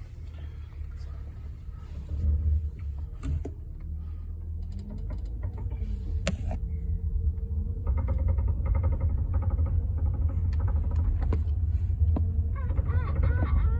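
Honda Odyssey minivan idling with a steady low rumble while the steering wheel is turned, with scattered metallic clicks from the steering. The clicking shows mostly on a cold start and is an undiagnosed fault the owner places up the steering column rather than at the wheel. A brief wavering squeal comes in near the end.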